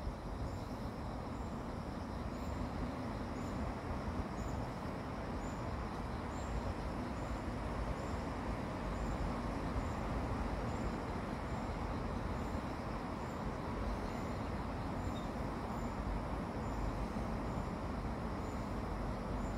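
Steady low background rumble, like distant traffic outdoors, with a faint high chirp repeating about once a second.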